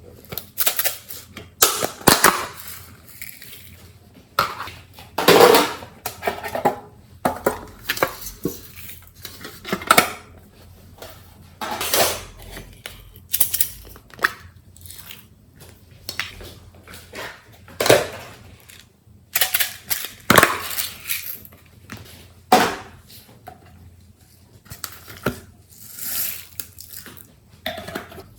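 Slime being mixed and squished: irregular sticky pops and clicks, with short squelching bursts.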